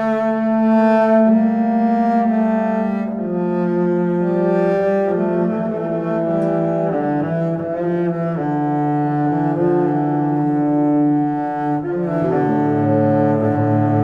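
Background music of slow, held chords in a low register, each note sustained for a second or two before the harmony moves on.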